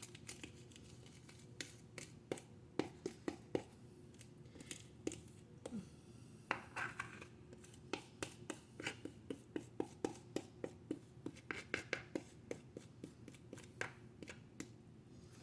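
Utensil scraping cake batter out of a container in a series of short, quiet strokes, coming faster about eight seconds in.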